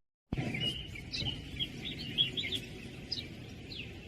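Small birds chirping: many short, high, quick calls, over a steady low background.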